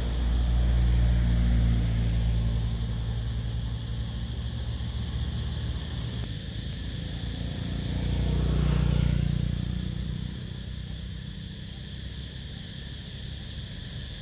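Road traffic: cars passing on the road, a low rumble swelling near the start and another car going by about eight to nine seconds in, with steady road noise between.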